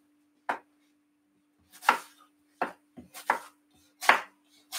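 Cut pieces of green apple dropping one by one into an empty plastic blender cup: about seven short, sharp knocks at irregular intervals.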